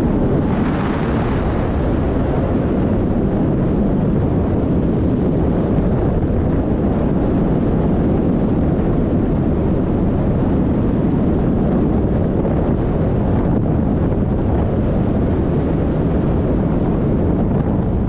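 Steady wind rushing over a harness-mounted camera microphone in paraglider flight.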